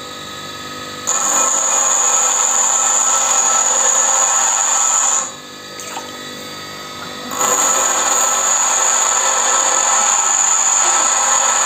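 REX bench grinder grinding a lathe tool bit, loud with a steady high whine. It runs twice, from about a second in to about five seconds and again from about seven seconds on; between, with the tool lifted off the wheel, only the grinder motor is heard running more quietly.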